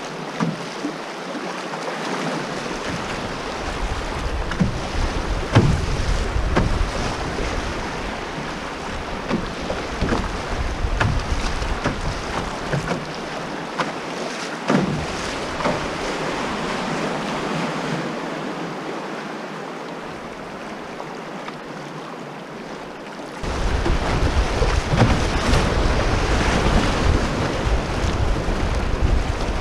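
Fast river water rushing and splashing around a canoe's hull, with occasional short knocks and slaps, and wind buffeting the microphone; the wind rumble drops out for a few seconds and comes back louder about three-quarters of the way through.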